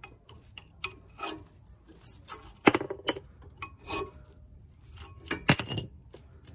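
Old front brake pads being worked out of the caliper bracket on a 2014 Opel Corsa D: irregular metallic clicks and clinks, with two louder knocks, one near the middle and one towards the end.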